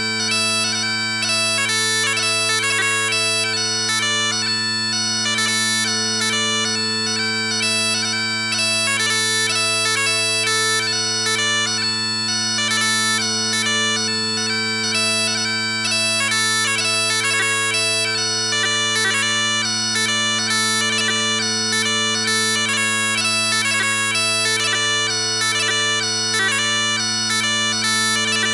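Blair Digital Chanter playing its Highland bagpipe sound set, pitched to 440 Hz: a pipe tune with quick note changes and grace notes over steady, unbroken drones.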